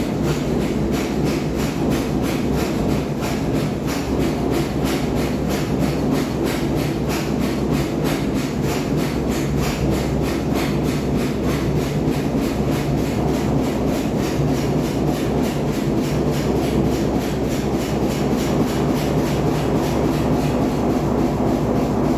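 Overloaded washing machine running, a steady low drone with a fast, even rhythmic rubbing and knocking from the packed drum.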